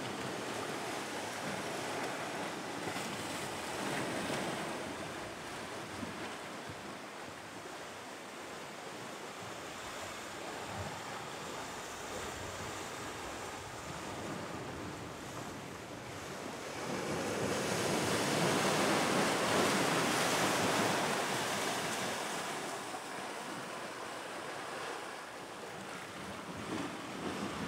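Sea surf washing in over rocks and sand, a steady wash with a bigger wave surging in about two-thirds of the way through.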